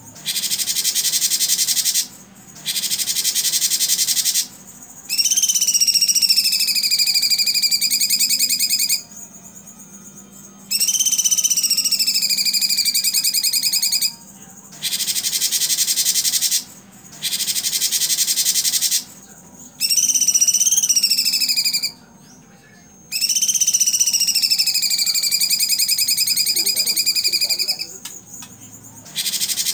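A cucak cungkok singing its loud 'tembakan' song, in phrases about one to three seconds long with short pauses between them. Harsh, rapid rattling bursts alternate with long, wavering whistled notes that rise and fall.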